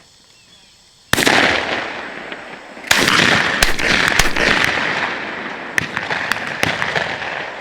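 Shotgun shots at incoming doves: a loud blast about a second in, then another about two seconds later with a third close behind, each report ringing out and fading slowly. A few fainter sharp pops follow near the end.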